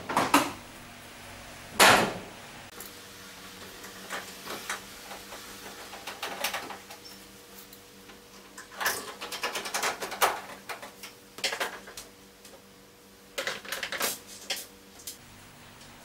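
Scattered knocks and clicks of a tumble dryer's sheet-metal front panel being handled and screwed into place, with a louder knock about two seconds in and quick runs of clicks later on. A faint steady hum lies underneath.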